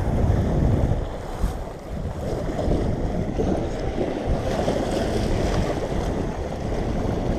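Wind buffeting the microphone in a steady low rumble, over small waves washing against a concrete seawall.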